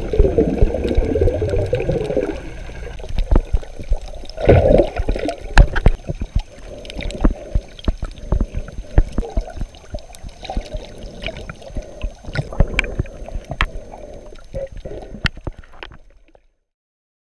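Underwater water noise: muffled gurgling and sloshing, louder at the start and again about four and a half seconds in, with many sharp clicks and knocks throughout. It cuts off abruptly about a second before the end.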